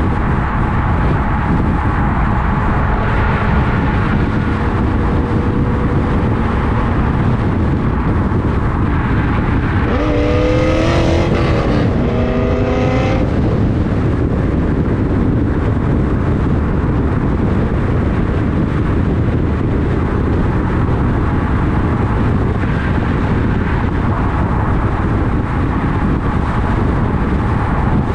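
C5 Chevrolet Corvette's 5.7-litre V8 through a Corsa exhaust and long-tube headers, running at highway speed under heavy wind and road noise. About ten seconds in, the exhaust note climbs sharply in pitch, drops, and climbs again over some three seconds as the car accelerates.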